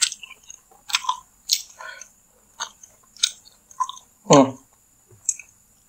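Close-miked chewing of saucy Madurese chicken satay: wet mouth smacks and sharp clicks every half second or so, with one louder, short pitched sound about four seconds in.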